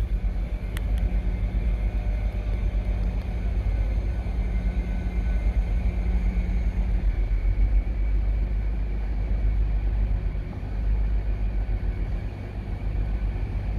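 Diesel train engine running with a steady low rumble; a steady hum in it cuts out about halfway through.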